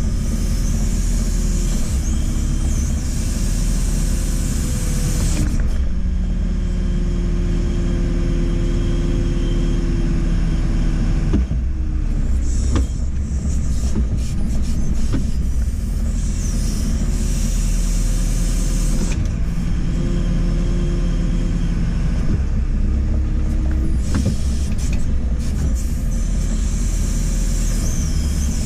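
JCB 4CX backhoe loader's diesel engine running steadily under hydraulic load as the backhoe works. Its pitch and tone shift in stretches every several seconds as the load changes.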